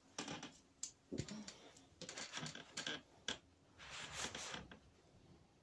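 Faint rustling with a few clicks and knocks, spread irregularly: handling close to the microphone, a fleece sleeve brushing past and a hand settling on a colouring book.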